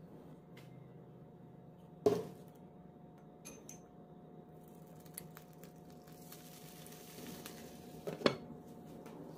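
Kitchen utensils knocking on a nonstick frying pan: a sharp knock about two seconds in, a few light clicks, then a loud clink near the end as a glass lid is set down on the pan.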